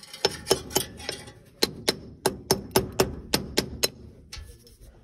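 Sharp hammer taps, about four a second: four strikes, a short pause, then nine more evenly spaced. They are typical of knocking a battery terminal clamp down onto its post.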